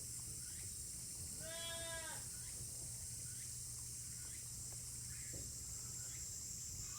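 A goat kid bleats once, a short high-pitched call about a second and a half in.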